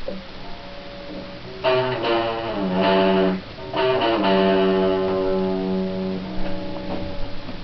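Electric guitar chords ringing out. A louder chord comes about four seconds in and sustains for a couple of seconds, then a few lighter plucked notes follow near the end.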